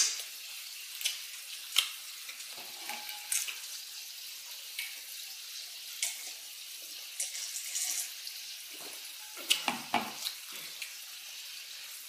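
Mukbang eating sounds: chewing of chicken Caesar salad with sharp mouth and utensil clicks scattered through, the loudest right at the start and a cluster near the end, over a steady hiss.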